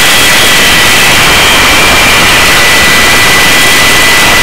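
Search-and-rescue helicopter hovering during a hoist: a loud, steady turbine whine, two high tones, over the even rush of rotor and wind noise.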